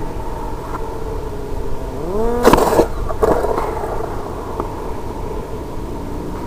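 Brushless electric motor of a RiteWing Zephyr ZII flying wing whining steadily, then spooling up in pitch about two seconds in, followed by a loud crash into snow-covered ice and a second hit under a second later as the plane tumbles; the whine fades after the impact.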